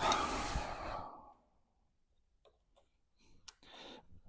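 A man's heavy sigh, a breath out lasting about a second, followed by near silence and a few faint clicks near the end.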